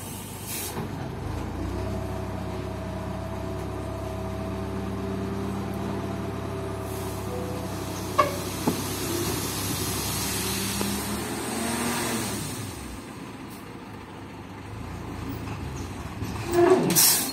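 Dump truck engine running steadily while its hydraulic hoist tips the bed, and a load of sand slides out with a rushing hiss. The engine note drops away about thirteen seconds in, and a brief loud burst comes near the end.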